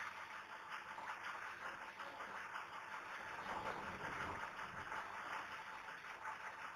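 Marker pen drawing on a whiteboard: faint, irregular scratchy strokes as lines and arrows are sketched.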